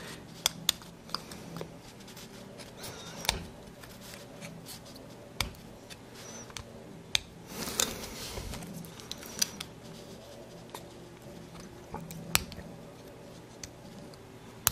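Hobby knife blade scraping and nicking at the edge of a clear plastic model-kit windscreen, trimming off a thick leftover of the sprue: irregular sharp clicks and short scrapes.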